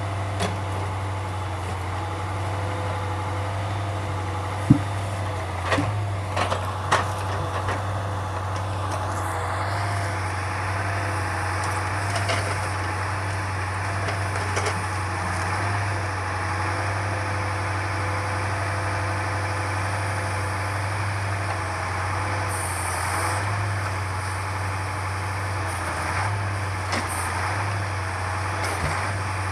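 Truck engine running steadily while driving the hydraulics of an OMTL 70-02 timber loader during log loading. A few sharp knocks come about five to seven seconds in, and around nine to ten seconds in the sound rises and stays louder and brighter, as the engine or hydraulics take up more load.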